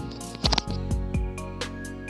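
Instrumental background music, held tones with a steady run of notes.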